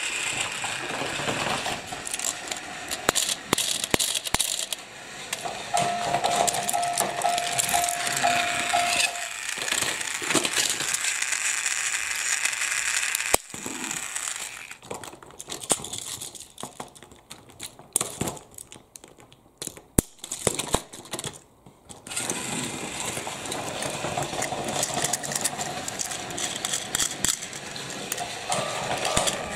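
Hard plastic toy train cars being handled and coupled, with many small clicks, rattles and clatters. A steady tone sounds for a few seconds early on, and a quieter stretch in the middle has only separate knocks.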